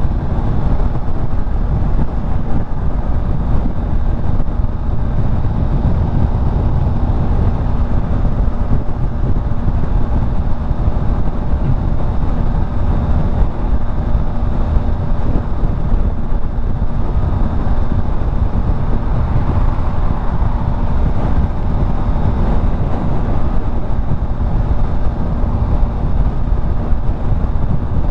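Yamaha XSR900's three-cylinder engine running at a steady highway cruise, its pitch holding constant, under heavy wind rush on the microphone.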